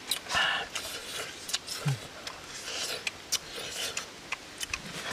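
Small clicks, rubbing and crackling as two people pick apart and eat small pieces of cooked food with their fingers.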